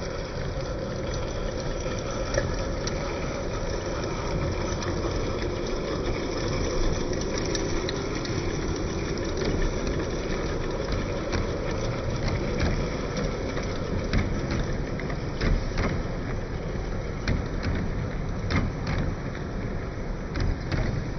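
Live-steam garden-scale double Fairlie locomotive running along the track: a steady hiss and rumble of steam and wheels, with scattered sharp clicks.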